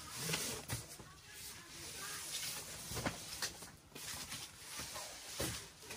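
Flattened cardboard boxes being handled and shifted, rustling and scraping, with a few sharp knocks spread through.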